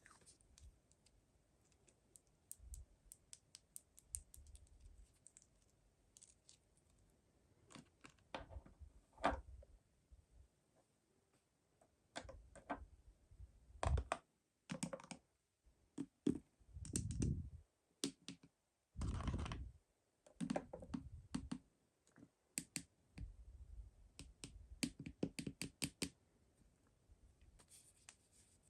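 Hands opening and handling mystery-toy packaging and small plastic toys: irregular clicks, taps and rustles, sparse at first and busier through the second half.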